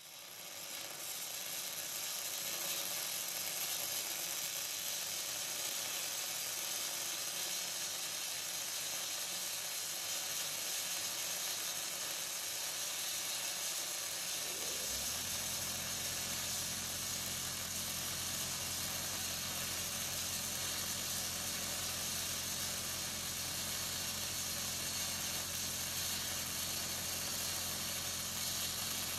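Electric arc welding on a steel tractor wheel rim: a steady, continuous sizzling hiss as the centre is welded back into the rim. About halfway a low steady hum from another machine joins in.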